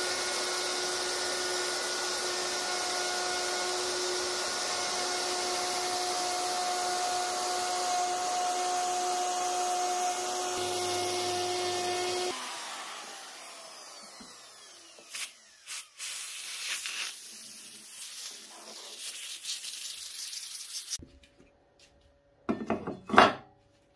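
Makita plunge router running steadily, cutting a groove into an ash slab, with a constant high whine over the noise of the cut. About twelve seconds in it is switched off and winds down, followed by clicks and handling knocks, and one loud knock near the end.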